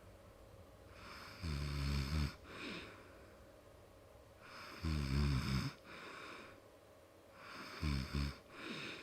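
A person snoring in their sleep: three low, buzzing snores about three seconds apart, each lasting about a second and followed by a shorter, fainter breath.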